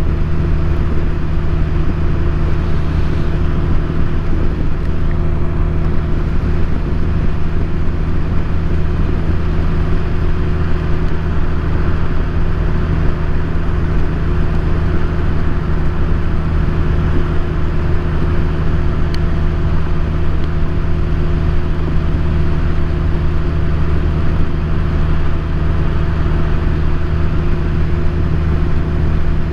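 2018 Honda Goldwing's flat-six engine running at a steady cruise, with wind and wet-road noise on the rider's microphone. The engine note holds a constant pitch, with no revving or gear changes.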